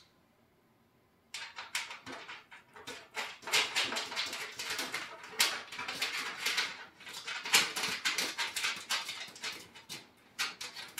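Galvanized corrugated steel raised-bed panels being handled while nuts are threaded onto bolts by hand: a close, irregular run of small metallic clicks, taps and scrapes. It starts after about a second of silence.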